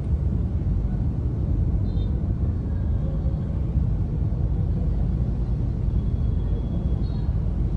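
Steady low rumble of a car in slow, stop-and-go traffic, heard from inside the cabin. Two faint, brief high tones come through, about two seconds in and again near the end.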